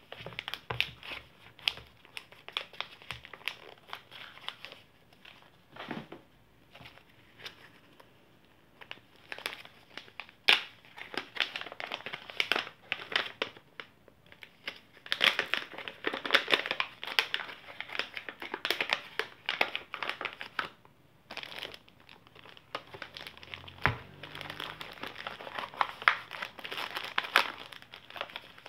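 Paper packing bags crinkling and rustling in irregular bursts as they are opened and handled by hand, with sharp crackles throughout and a single soft knock late on.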